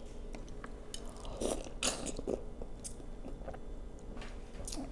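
Close-up mouth sounds of eating a shrimp dipped in sauce: wet biting and chewing with small smacks, the loudest cluster about one and a half to two and a half seconds in.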